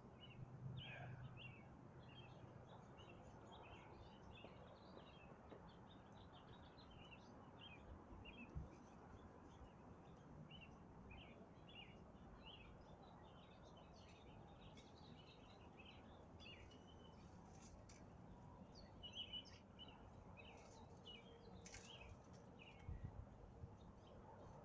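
Near silence with faint birdsong: many short chirps from small birds throughout, and a couple of soft thumps.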